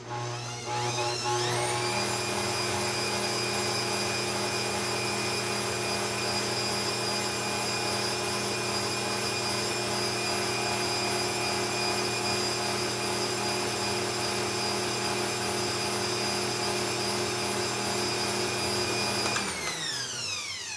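Bosch Compact 400-watt kitchen machine's motor starting up, its whine rising in pitch over about two seconds, then running steadily as it beats butter, sugar and eggs. Near the end it is switched off and winds down.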